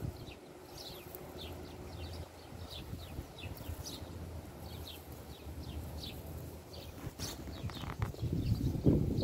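Small birds chirping over and over in the background, short falling calls several times a second, over a low rustle. Near the end, louder crackling and crunching on dry leaves and gravel sets in.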